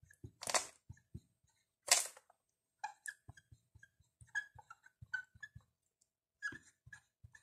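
Dry-erase marker writing on a whiteboard: a run of short squeaks and scratchy strokes as the letters are formed, with two longer hisses about half a second and two seconds in.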